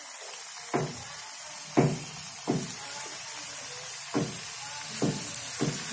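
Hot oil sizzling steadily in a frying pan as raw donut dough rings go in one at a time, with about six short knocks spread through.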